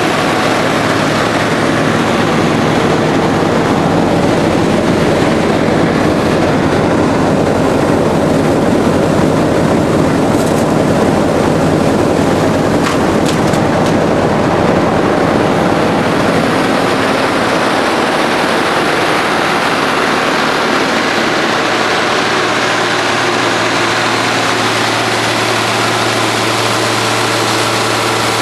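Cummins six-cylinder turbo diesel engine of a Morbark horizontal grinder running steadily. About three-quarters of the way through the sound shifts and a steady low hum comes forward.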